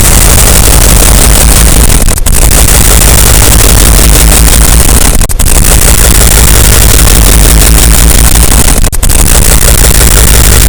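A thunderstorm sound effect stacked on itself many times over, merged into one heavily distorted, clipping wall of noise. It breaks off in three brief dropouts, about two, five and nine seconds in.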